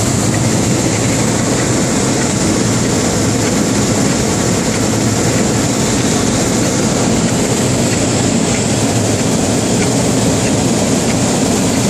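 Schelling panel saw running: a steady, even machine rumble with a constant high hiss over it and no distinct strokes or impacts.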